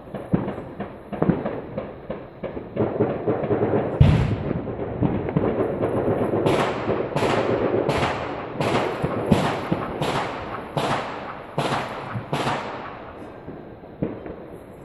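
New Year's Eve fireworks with many overlapping crackles and pops, and a heavy boom about four seconds in. A run of about nine sharp, echoing bangs follows, evenly spaced a little under a second apart, before the volley thins out near the end.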